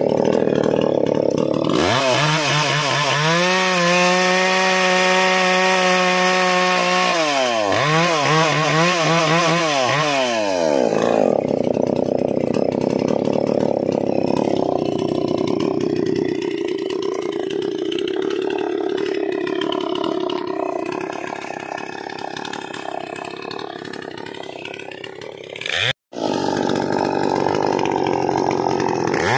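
Maximus 57cc two-stroke chainsaw revved up to full throttle and held there, its revs rising and falling, then sawing through a log with a rougher, noisier sound that slowly weakens under load. A sudden break near the end, then the saw revving again.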